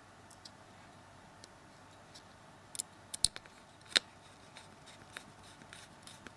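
Small Phillips screwdriver putting a small screw back into a phone's main board: scattered light clicks and ticks of the tool and parts, with a few sharper clicks about three to four seconds in.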